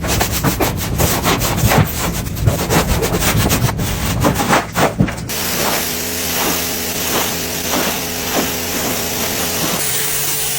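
Scraping and scrubbing during car interior cleaning: irregular, sharp rubbing strokes, then about five seconds in an abrupt change to a steady hiss with regular scrubbing strokes about twice a second.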